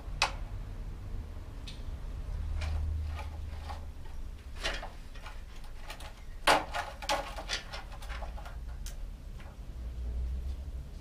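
Irregular metallic clicks and knocks from hand work on a Dutch bicycle's rear wheel, the loudest cluster of clicks about six and a half seconds in.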